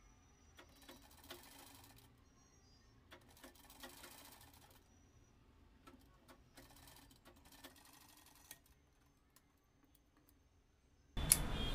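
Domestic sewing machine stitching cotton kurti fabric in several short runs, a faint whirr with light ticking of the needle, then stopping. Near the end a louder hiss with a couple of sharp clicks comes in suddenly.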